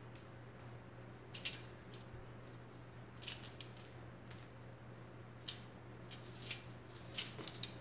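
Aluminium foil crinkling and a spatula scraping lightly over it in scattered short crackles while bleach is spread across a lace closure, more of them near the end. A faint low hum runs underneath.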